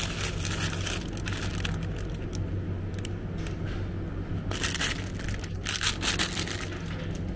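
Clear plastic packaging around a store-bought focaccia crinkling in irregular bursts as it is picked up and handled, over a steady low hum.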